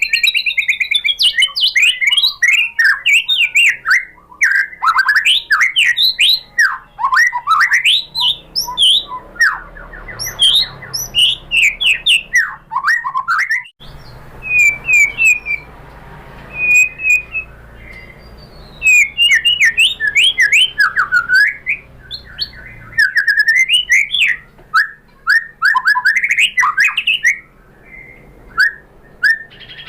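White-rumped shama (murai batu) singing a fast, varied song of whistled phrases and trills, punctuated by sharp clicks, with brief pauses between runs.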